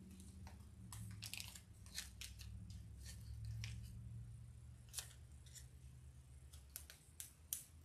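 Fabric of a pieced quilt block being handled and turned in the hands: faint rustling with scattered small crinkles and clicks, over a low steady hum that fades near the end.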